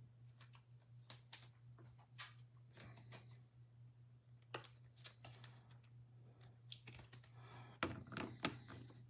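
Faint clicks and short rustles of trading cards and card packs being handled, the sharpest a little over a second in and near the end, over a steady low hum.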